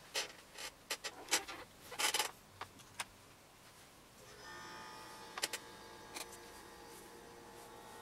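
Handling noise: a quick run of sharp clicks and rustles for about three seconds. Then a faint steady hum of several high tones comes in about four seconds in, with a couple more light clicks.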